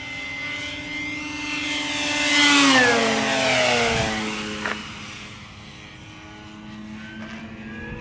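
Electric radio-controlled warbird model making a fast low pass. The steady motor-and-propeller whine swells, then drops in pitch as the plane goes by about three seconds in, and fades.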